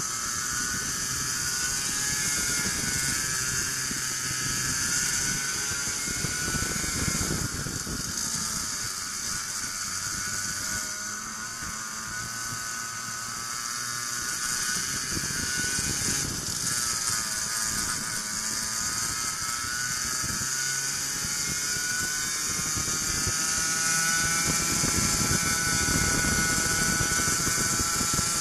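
Racing kart engine at high revs, heard from on board the kart: its pitch falls twice as the kart slows for corners, then climbs again as it accelerates.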